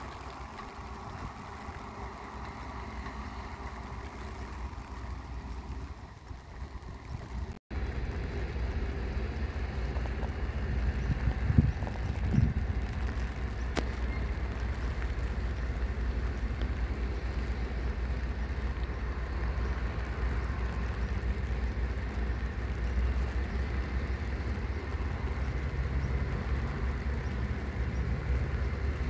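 Diesel locomotive engine running steadily. About seven and a half seconds in, the sound breaks off for an instant, then a louder steady low rumble carries on, with two thumps a second apart.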